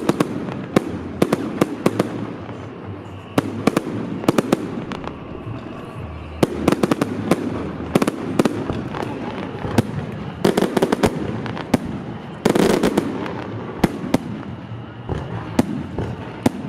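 Fireworks display: many sharp cracks and bangs in rapid clusters over a low, rumbling boom. The densest, loudest volley comes about twelve seconds in.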